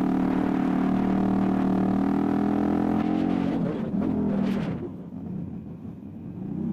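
Motorcycle engine running under way with wind rush. About three and a half seconds in, its note drops and fades as the throttle is eased, and it picks up again right at the end.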